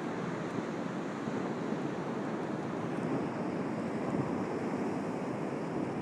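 Strong wind buffeting the microphone in a steady rushing noise, mixed with the wash of surf.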